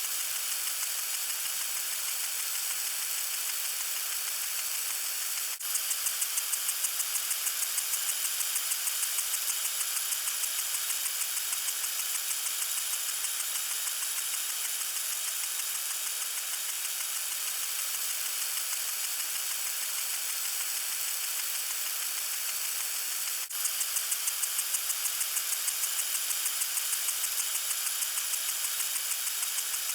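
Lawn sprinkler spraying water in a steady hiss. Twice a quick, even pulsing of the spray sets in and slowly fades back into the hiss.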